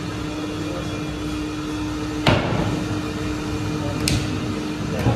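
A glass whisky bottle set down on a table with a knock about two seconds in, then a short sharp click near the end as its screw cap is twisted. A steady mechanical hum with one held low tone runs underneath.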